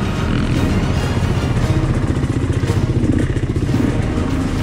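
Yamaha YZ125X 125 cc two-stroke dirt bike engine running on the trail, with background music laid over it.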